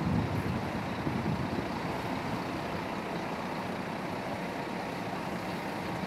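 Intercity coach's diesel engine running as the bus drives slowly away, a steady rumble.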